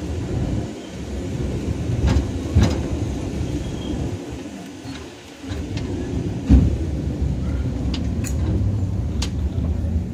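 Vintage tram running on its track: a steady low rumble broken by several sharp knocks, the loudest about two-thirds of the way through.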